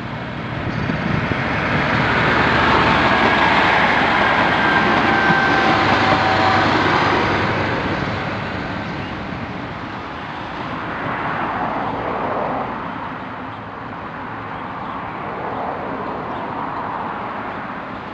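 An Auckland AM-class electric multiple unit passes close, wheel and rail noise swelling with a whine of a few steady tones over it, then dying away after about seven seconds. Later an ADL diesel multiple unit is heard fainter, approaching from a distance.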